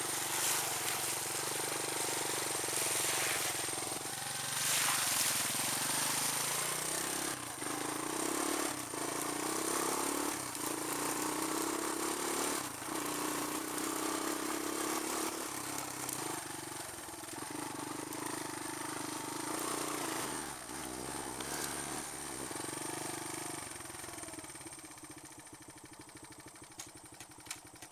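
ATV engine running while the four-wheeler is ridden across grass, its pitch rising and falling as the throttle changes, then quieter near the end as it slows down.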